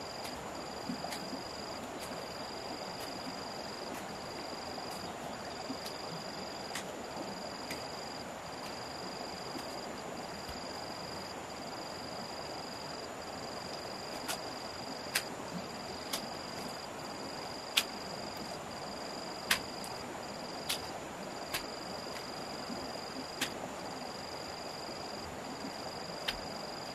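Insects shrilling: one high steady note and another pulsing on and off about once a second, over a steady hiss of outdoor ambience. From about halfway on come about ten sharp, separate clicks.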